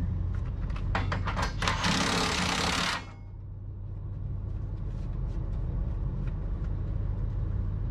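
A few metal clanks, then a cordless impact driver hammering for about a second on a bolt of the grinder's screen, over a steady low hum.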